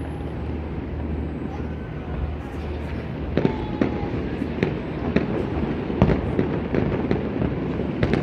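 Fireworks going off: a string of sharp bangs and crackles starting about two and a half seconds in and coming more often toward the end, over a low steady hum.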